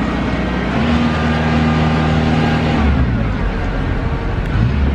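Diesel locomotive engine running, a steady low rumble with a hum whose pitch shifts about three seconds in.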